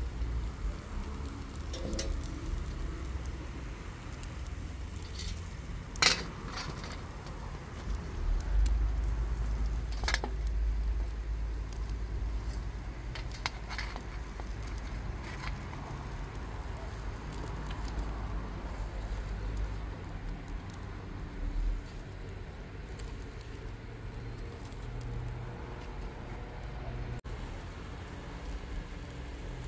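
Metal kebab skewers clinking now and then as they are handled on a charcoal grill and set on a metal tray: a few sharp clicks, the loudest about six seconds in. A low steady rumble runs underneath, heaviest in the middle.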